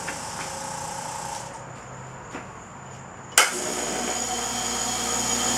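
A small air compressor runs and stops about a second and a half in. About three and a half seconds in, a sharp click sounds as the California Air Tools CAT-1610A oil-free air compressor starts. It then runs with a steady hum and a high whine, plainly louder than its 60 dB rating; it measured about 70 dB.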